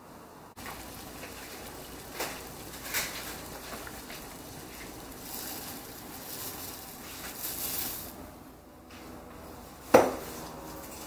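Rolled oats poured from a bowl into boiling water in a stainless steel saucepan, over a steady bubbling hiss, with a couple of light knocks and one sharp, ringing clank of dishware against the pot near the end.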